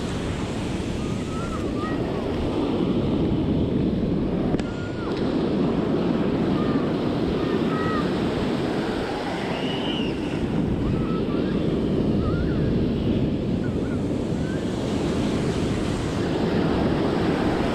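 Ocean surf breaking and washing up the beach, a loud steady rush that swells and eases, with wind buffeting the microphone.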